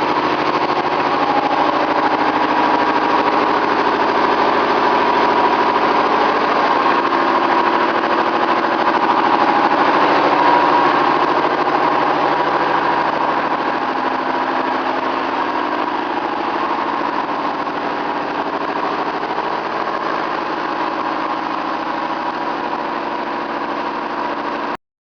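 Universal milling machine running: a steady mechanical drone of its motor and gearing with a held tone, cutting off abruptly near the end.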